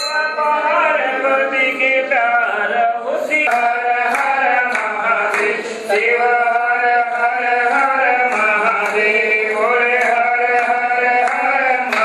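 Male voices chanting Sanskrit mantras of Shiva worship, sung on long held pitches that slide from note to note.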